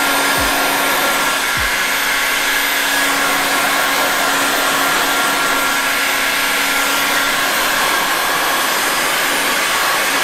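Handheld electric heat gun running steadily: a constant rush of blown air with a steady low hum. It is heating the edge of paint protection film on a car door so the lifted film can be pressed down and sealed.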